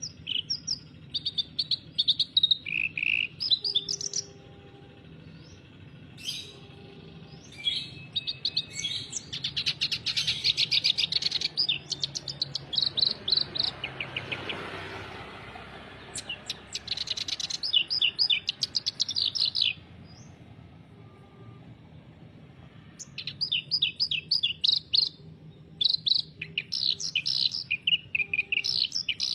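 Reed warbler (kerak basi) singing in full, non-stop voice: loud phrases of rapid, harsh chattering notes, each run lasting a few seconds with short pauses between.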